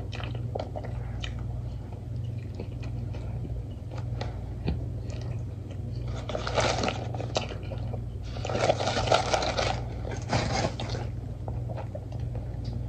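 Close-miked chewing of a burger: biting and wet mouth clicks. Louder scratchy noise comes about six seconds in and again from about eight to eleven seconds in, over a steady low hum.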